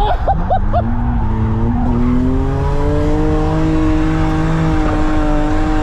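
BMW E30 drift car's engine heard from inside the cabin during a drift run: four quick rev blips in the first second, then the revs climbing over about two seconds and holding steady and high.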